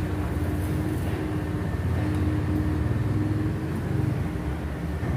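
A machine engine running steadily nearby: a continuous low drone with a steady hum tone above it.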